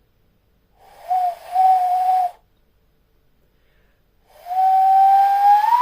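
Hand whistle: air blown across the knuckles into cupped hands, giving a breathy, hollow, owl-like tone. Two blows: a steady note of about a second and a half, then a longer one starting past the middle that slowly rises in pitch.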